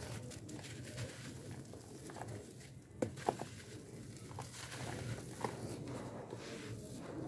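Dry charcoal chunks and powder crumbled and sifted by hand, a soft gritty crunching and trickling. A few sharper crunches come about three seconds in.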